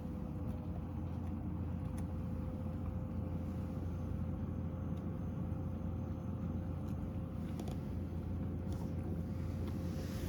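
Steady low machine hum with a thin, steady higher whine above it, and a few faint clicks.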